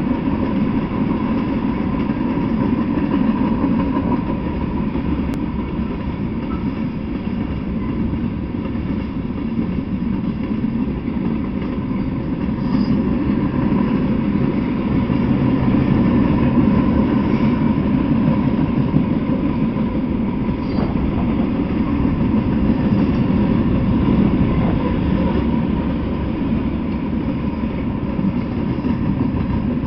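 A freight train's cars rolling past on the rails, recorded through a trail camera's microphone: a steady, loud rumble of steel wheels on track with a faint steady tone above it.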